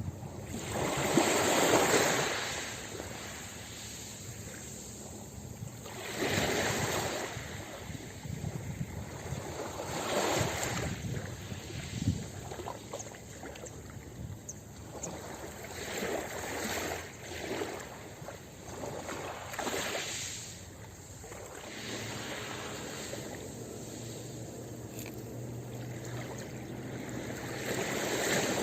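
Ocean waves breaking on a beach, the surf noise swelling and washing back in repeated surges every few seconds, the loudest one near the start.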